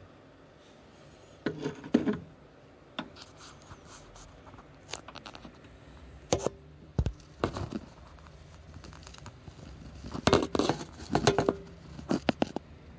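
Irregular scrapes, rustles and light knocks in short clusters: handling noise as the camera is moved against the table saw's metal parts and plastic dust shroud.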